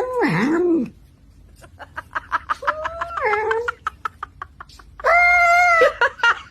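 Animal calls: a wavering cry at the start, then a run of quick clicks with a short call in the middle, and a loud, steady, held call about five seconds in.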